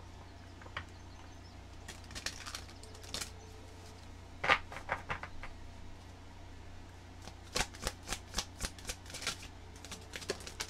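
A deck of healing-crystal oracle cards being shuffled by hand, the cards slapping and flicking against each other in several short runs of quick clicks.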